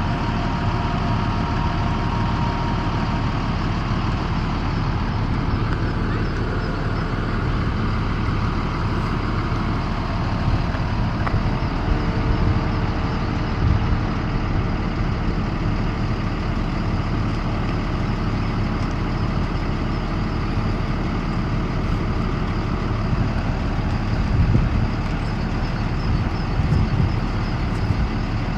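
School bus engine idling steadily at a low, even pitch.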